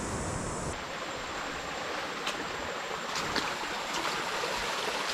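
Steady rush of a small rainforest stream or little waterfall. A few faint clicks come through it. A low wind-like rumble is heard for the first moment and cuts off abruptly.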